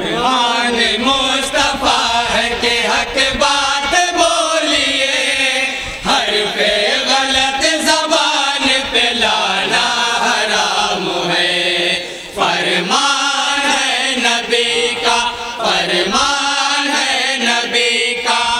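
A group of men chanting a naat together in chorus, several voices gathered at one microphone with one leading.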